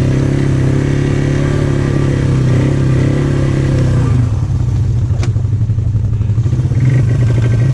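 ATV engine pulling at steady throttle through mud, then easing off about four seconds in to a lower, throbbing idle.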